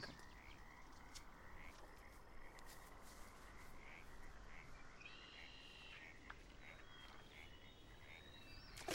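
Faint frog calls: a short chirp repeating about twice a second over a low hiss of outdoor ambience.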